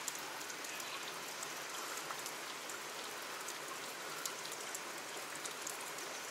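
Steady hiss and patter of water in a rocky creek gorge, with faint scattered ticks.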